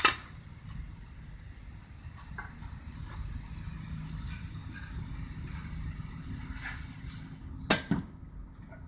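Heavy steel hand tools being handled: a sharp metallic clack at the start, quiet handling over a low shop hum, then a loud metal clank near the end followed by a smaller one.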